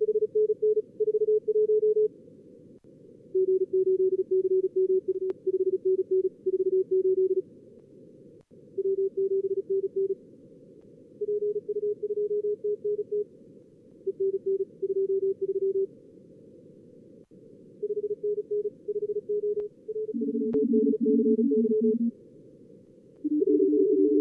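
Fast Morse code (CW) from a contest simulator: groups of keyed dits and dahs in a steady tone, several call signs and exchanges in a row, over a steady hiss of narrow-filtered receiver noise. Near the end a second, lower-pitched signal sends at the same time as the first, as two radios are worked at once.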